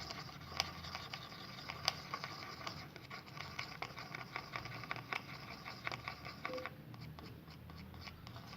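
Irregular light clicks, taps and scrapes of handling and stirring slime ingredients in a small container.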